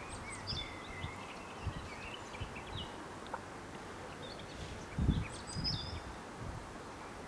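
Small songbirds chirping and twittering, with low gusts of wind buffeting the microphone about five seconds in.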